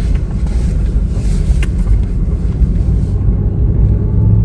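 Steady low rumble of a car driving slowly, heard from inside the cabin, with a single sharp click about a second and a half in.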